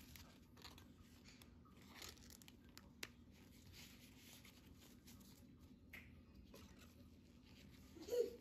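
Faint rustling and a few light clicks of trading cards and plastic card sleeves being handled. A short voice sound comes just before the end.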